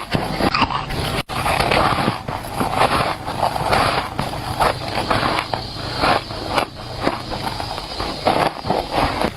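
Shaved ice being bitten and chewed, a steady run of squeaky crunches about two or three a second.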